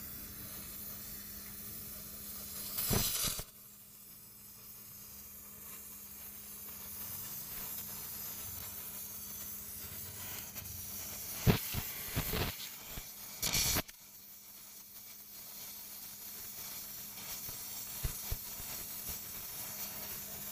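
Gas welding torch hissing steadily while it welds a motorcycle silencer's mounting bracket, with a few brief louder bursts of noise about three seconds in and again around twelve to fourteen seconds in.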